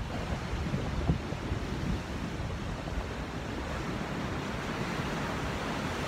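Ocean surf washing steadily onto the beach, with a little wind on the microphone.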